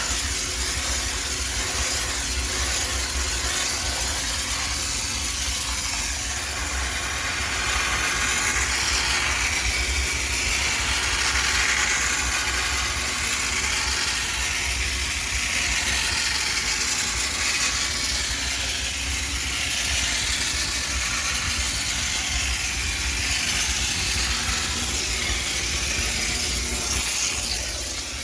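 High-pressure steam steriliser blasting steam into a washing machine to sanitise it: a steady hiss that swells and shifts now and then, over a low machine hum.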